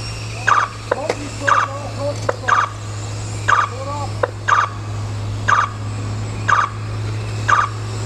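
Race timing system sounding short electronic beeps about once a second, counting down the last seconds of the race, over a steady low hum.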